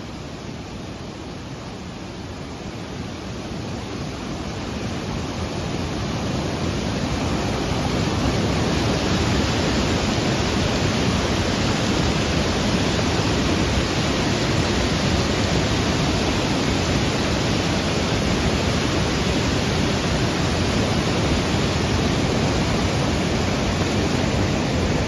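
Flood water rushing in a steady, loud wash of noise, growing louder over the first several seconds and then holding steady.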